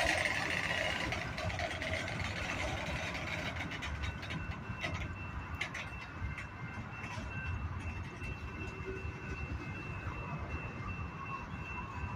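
Mixed freight train rolling past: a steady low rumble of the cars, with scattered clicks from the wheels and a thin steady high-pitched tone running through it.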